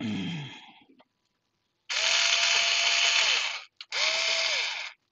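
Handheld electric screwdriver running in short bursts of one to two seconds, driving a screw into a chassis frame. Its motor whine sags in pitch as each burst stops. The screw is not going in properly.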